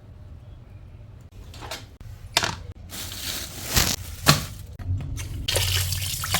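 Kitchen handling sounds: several sharp knocks and clatters, then about five and a half seconds in a tap starts running steadily.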